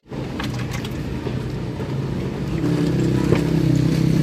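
Motor vehicle engine running steadily, a low hum that grows louder about halfway through.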